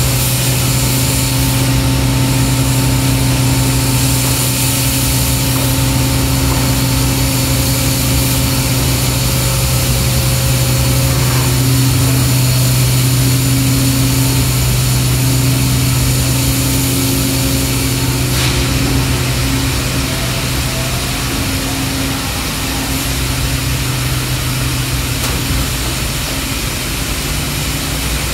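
Injection molding machinery running in the plant: a steady, loud mechanical hum with a low drone and a few steady higher tones, the upper tones shifting about a third of the way through and the drone easing slightly later on. A single faint click about two-thirds in.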